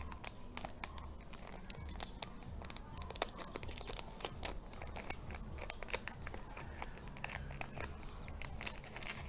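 Plastic snack-pack wrapper crinkling and crackling as it is opened, a dense run of short, sharp crackles.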